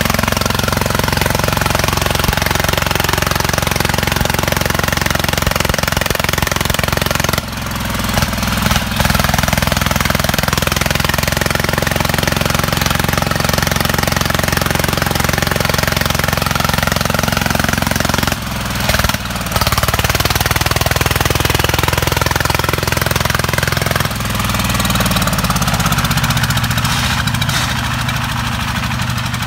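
Công nông farm vehicle's single-cylinder diesel engine running with a fast, hard knocking beat. It dips briefly about 7 and 18 seconds in, then drops to a lower, slower run a few seconds before the end.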